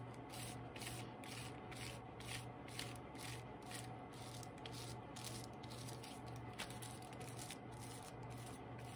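A foam brush swept back and forth over copy paper, spreading watered-down tacky glue, in a steady rhythm of soft rubbing strokes, two or three a second.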